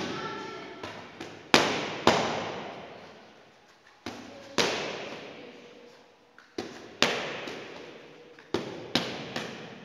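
Gloved punches landing on focus mitts: about a dozen sharp smacks, often in quick pairs, each ringing on in a large echoing hall.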